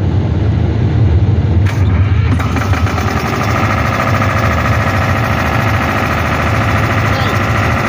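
Machinery running with a steady low drone; about two seconds in, a second machine starts up and keeps running, adding a higher, busier whir on top.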